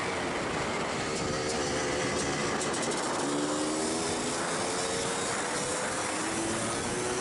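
Supermoto racing motorcycle under way at speed, heavy wind rush on the onboard microphone over the engine, whose note rises a couple of times as the bike accelerates out of the bends.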